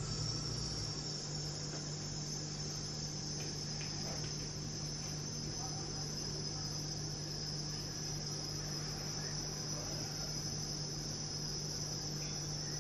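Crickets chirping in a steady high-pitched trill that cuts in suddenly, over a low steady hum.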